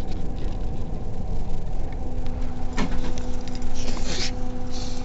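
Steady engine and road drone heard inside a moving bus, with a low hum throughout. A few short clicks and rustles come about three to four and a half seconds in.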